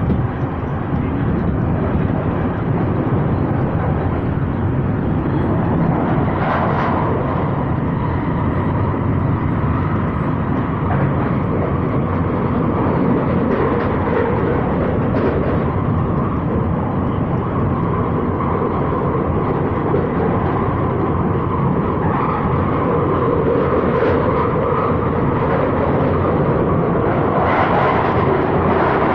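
London Underground 2009 Stock Victoria line train running through the tunnel, heard from inside the carriage: a loud, steady rumble and roar of wheels on rail and traction equipment, with a faint hum running through it.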